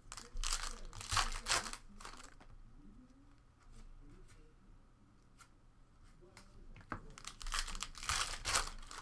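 Foil wrapper of a trading card pack being torn open and crinkled in the hands, in two bouts: one starting about half a second in, another about seven seconds in.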